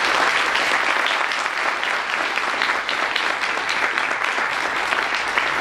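A small audience applauding: many hands clapping steadily.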